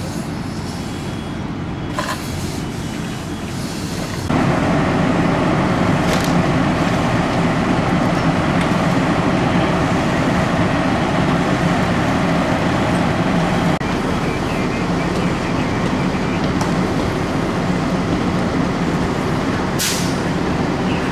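Fire engine running steadily while its pump feeds the hose lines, a constant engine drone with a steady hum. It becomes suddenly louder about four seconds in.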